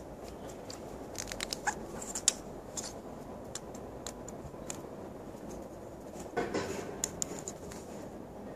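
Handling noise close to the microphone: scattered small sharp clicks and taps, with a brief rustle about six and a half seconds in.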